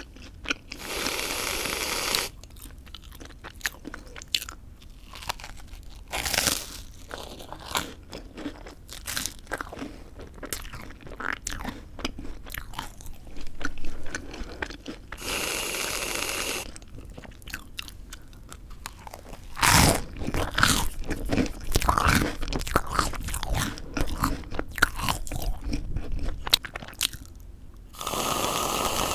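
Close-miked crunching bites and chewing of crisp, well-toasted white bread, with many sharp cracks and crackles. Three times, a steady hiss lasts a second or two.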